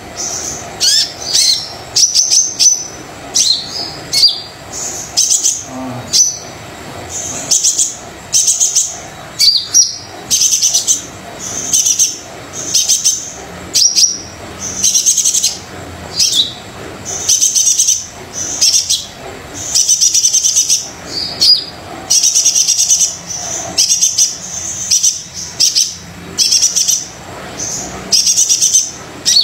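A brown-breasted sunbird ('kolibri dada coklat') singing hard: bursts of shrill, high-pitched twittering about once a second, some with quick downward-sweeping notes.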